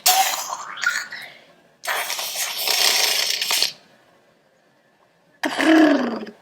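Children making sound effects with their voices: a short noisy burst with a gliding squeak, a longer hissing whoosh about two seconds in, and a short voiced sound falling in pitch near the end.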